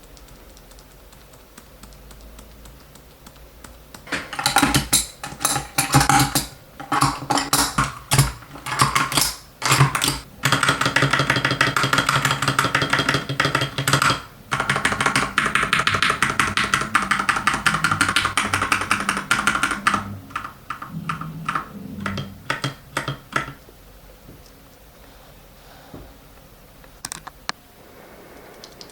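Typing on a Keychron K2 V2 mechanical keyboard with Outemu Silent Lemon V3 silent switches, PBT keycaps and a foam-filled aluminium case. After a few quiet seconds, bursts of keystrokes give way to a long fast run of continuous typing, then a few scattered key presses near the end.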